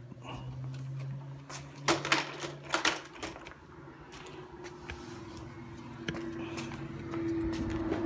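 Scattered clicks and knocks of things being handled and moved, over a low steady hum that grows louder near the end.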